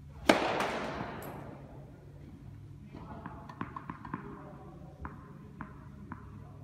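A tennis racket striking the ball on a serve: one sharp pop that rings on in the hall's echo for over a second. Later come lighter taps, the last few about half a second apart as the ball is bounced on the court before the next serve.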